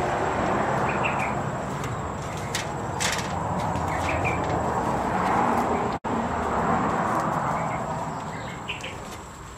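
Steady outdoor noise with a few short bird chirps, easing off toward the end.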